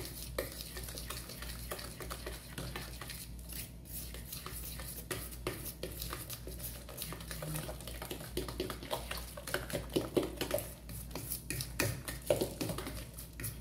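Hand whisk stirring flour into thick cake batter in a plastic bowl: repeated scraping and light clicking of the utensil against the bowl.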